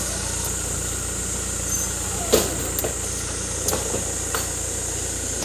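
An engine idling steadily, with a sharp knock a little over two seconds in and a few lighter clicks after it.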